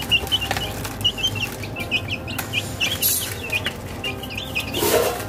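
Young chickens peeping: many short high cheeps, several a second, while they peck at feed. A brief rustling noise comes a little before the end.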